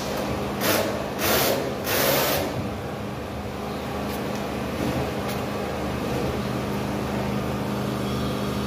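A steady engine or machine hum. About half a second in, three short bursts of hiss come close together, over roughly two seconds.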